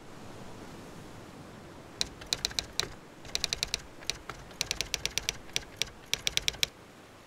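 Typing on a keyboard: several quick runs of sharp key clicks, starting about two seconds in and stopping shortly before the end, over a faint steady hiss.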